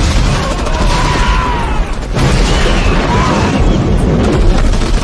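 Battle sound effects: a continuous din of explosions and booms with gunfire, heavy in the low rumble, dipping briefly about two seconds in.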